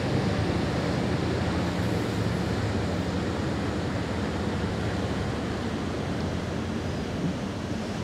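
Fred Olsen cruise ship Bolette passing close by: a steady low hum from the ship under an even hiss of wind and water.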